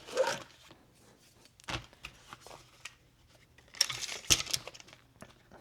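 Handling of a suppressor and a small Magpul DAKA synthetic fabric pouch: fabric rustling with scattered sharp clicks and taps, a cluster of them about four seconds in.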